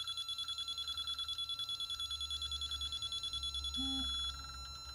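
Milwaukee digital torque wrench beeping rapidly, about ten high beeps a second, as it is pulled up toward its 100 ft-lb setting. About four seconds in the beeping turns into a steady tone for about half a second, the alert that target torque is reached, and then fainter pulsing follows.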